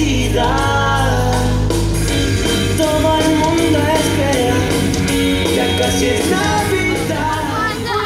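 A Christmas pop song with a singer over a band backing, played loud through stage loudspeakers.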